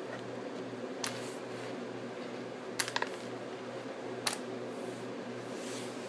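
A few sharp, separate clicks of hard cat treats and a plastic treat toy knocked about by a cat: one about a second in, a quick pair around three seconds, and one more past four seconds. A low hum that pulses about twice a second runs underneath.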